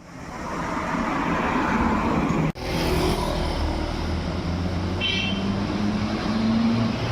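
Road traffic: vehicle engines and tyre noise, steady apart from a brief dropout about two and a half seconds in, with one engine's pitch rising slightly near the end.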